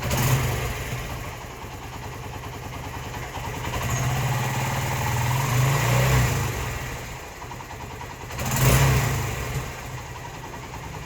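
Hero Karizma's single-cylinder motorcycle engine running, idling and revved twice, about four seconds in and again near nine seconds. It runs without misfiring on the other bike's wiring, a sign that the missing fault lies in its own wiring.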